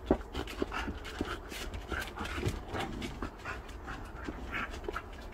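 A dog panting in quick, short breaths while playing. A single sharp knock comes at the very start.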